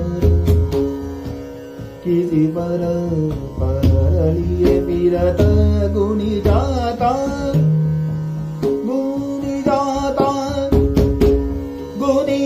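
Dhrupad vocal in Raag Bhup: a male voice sings sliding, ornamented phrases over a steady tanpura drone, accompanied by a pakhawaj playing deep bass strokes and sharp treble strokes.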